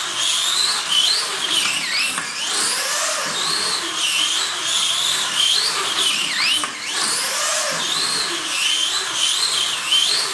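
Slot car on a 2NASTE prototype chassis running laps on a wooden track: its small electric motor whines high, the pitch rising and falling over and over as the car speeds up and slows through the turns, over a steady hiss.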